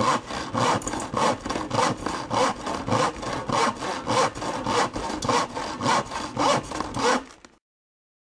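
Hand saw cutting wood in steady back-and-forth strokes, a stronger stroke a little more often than once a second, stopping abruptly near the end.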